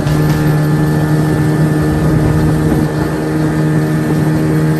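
40 hp outboard motor running steadily at speed, a constant engine drone over the rush of wind and water.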